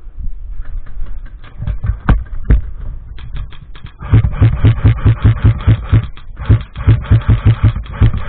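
A fast, even run of sharp knocking clicks with low thumps, about five a second, starting about four seconds in with a short break near six seconds; two single clicks come earlier, around two seconds in.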